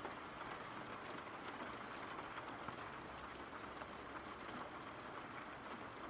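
Faint, steady rain falling, a soft even patter of many small drops.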